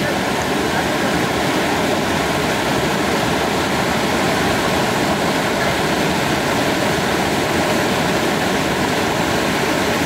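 Steady rushing noise of Dudhsagar Falls, a tiered waterfall, its water pouring down over rock.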